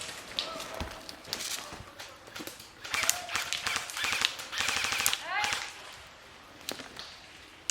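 Airsoft guns firing rapid strings of sharp clacks in bursts, densest in the middle, with faint distant shouting.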